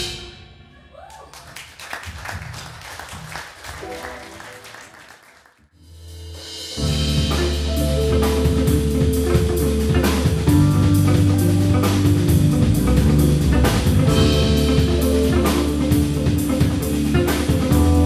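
Live band music: a sparse, quieter passage, then the full band with drums comes in loud about seven seconds in and plays on steadily with a heavy low end.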